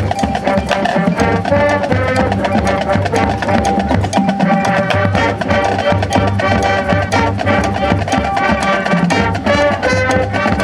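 High school marching band playing Latin-style music: brass holding chords over a steady, busy percussion rhythm.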